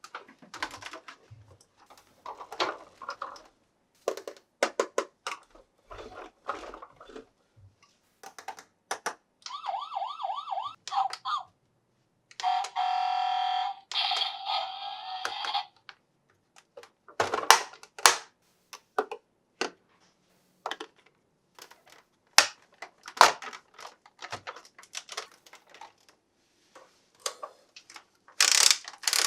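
Plastic toy and packaging handling: scattered clicks, taps and rustles. In the middle, a battery-powered Paw Patrol toy vehicle plays electronic siren sound effects. First comes a fast wavering wail of about two seconds, then a louder electronic tone sequence of about three seconds.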